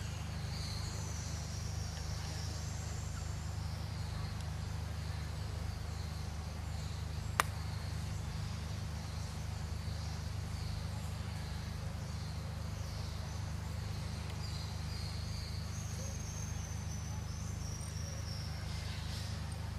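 Insects chirping and trilling high and thin over a steady low hum, with one sharp click about seven seconds in.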